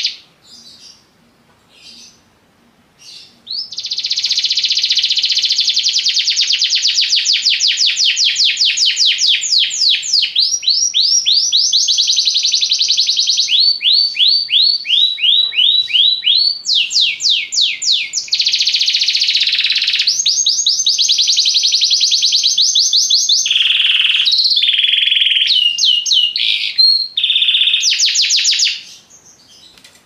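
Domestic canary singing: after a few faint short notes, a long continuous song of fast rolling trills and runs of repeated notes begins about four seconds in. It shifts in speed and pitch from phrase to phrase and stops shortly before the end.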